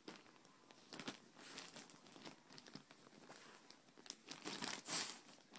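Close rustling and crinkling with many sharp clicks, loudest just before the end.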